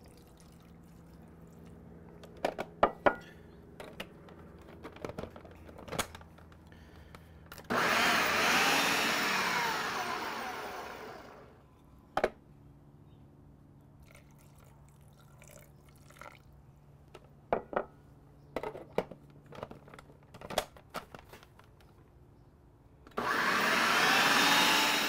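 Food processor blending avocado salsa with added water, run in two bursts of about four seconds. Each starts suddenly and fades out. Quiet clicks and knocks come between the runs.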